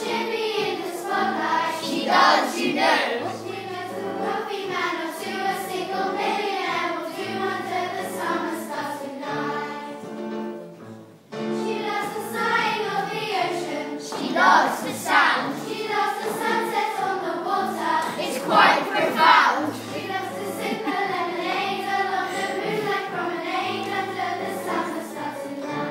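A group of children singing a show song together over musical accompaniment with a steady bass line. The music breaks off briefly about ten seconds in, then starts again.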